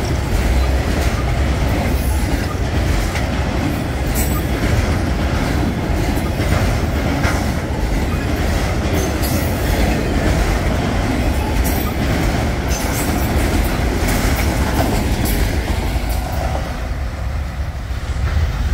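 Freight train of autorack cars rolling past at close range: a steady rumble with irregular clacking of steel wheels over the rail joints. It eases a little near the end as the last cars pull away.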